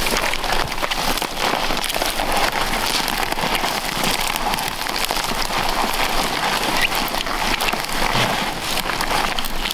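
Dense, steady crackling and rustling of dry twigs, needles and bark scraping against clothing as a man wriggles through low, tangled tree branches.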